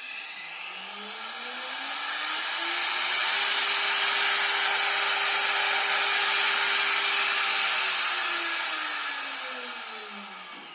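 Chinese GDZ80X73 2.2 kW air-cooled spindle motor, run from a VFD, spinning up with a rising whine to its top speed of 24,000 rpm (400 Hz) and holding there for about four seconds over the hiss of its cooling fan. It then winds down, the whine falling away near the end.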